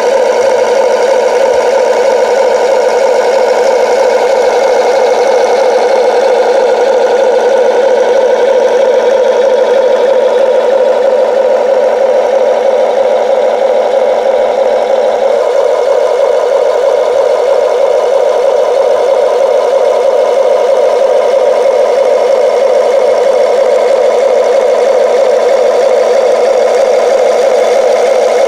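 Simulated diesel engine idling from the RC excavator's built-in sound module, heard through its small speaker as a steady engine drone. A faint lower hum in it drops out about halfway through.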